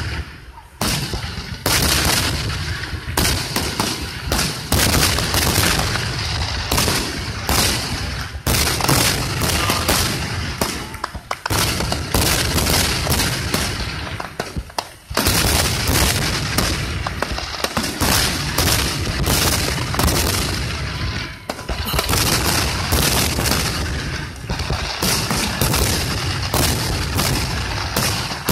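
Aerial fireworks shells bursting in a rapid, nearly continuous barrage of booms, one on top of another, with only brief lulls.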